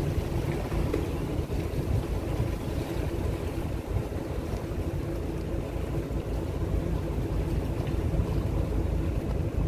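Boat engine running steadily while under way, a continuous low rumble, with wind buffeting the microphone.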